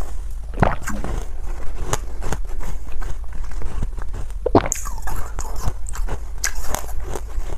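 A person biting and crunching ice close to the microphone, chewing with many irregular sharp cracks as the pieces break, over a steady low hum.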